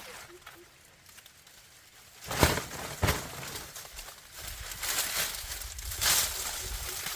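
Two sharp knocks, about two and a half and three seconds in, then rustling and crackling that swells briefly near the end.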